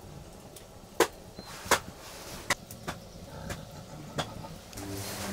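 Wood fire in an open hearth crackling under a metal water pot, with single sharp pops about a second apart.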